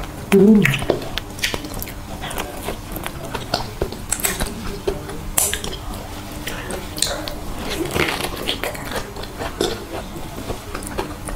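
Close-miked mouth sounds of biting into and chewing soft, creamy durian flesh: wet smacks and squishes scattered throughout. A short hummed voice sound, falling in pitch, comes about half a second in as the bite is taken.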